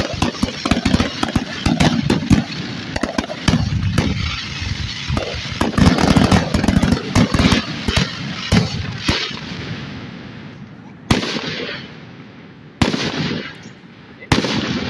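Aerial fireworks shells bursting in a dense, rapid barrage of bangs and crackle for about the first nine seconds, then thinning out to three separate bangs near the end.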